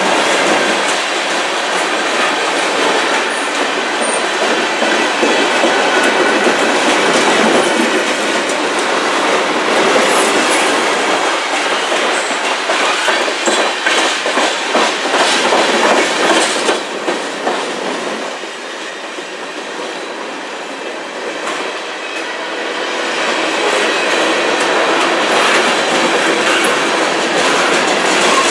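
CN freight train's cars rolling past close by, with the steady rumble of steel wheels on rail and repeated clacks as wheels cross rail joints; the sound eases off for a few seconds about two-thirds through, then builds again.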